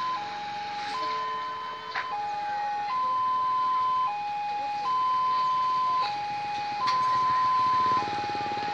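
Railway level-crossing warning alarm: an electronic two-tone signal alternating between a higher and a lower note, each held about a second, repeating steadily. It sounds while the barrier is down, warning that a train is approaching.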